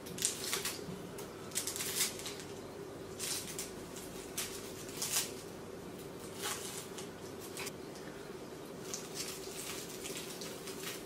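Crisp, flaky crust of a baked phyllo börek crackling and crunching as fingers press it and break it open, in irregular crackles. A faint steady hum lies underneath.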